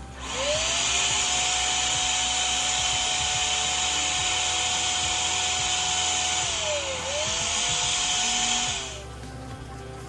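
Electric balloon inflator's air blower running while a latex balloon is filled: the motor spins up at the start, dips and picks up again about seven seconds in, and spins down about nine seconds in.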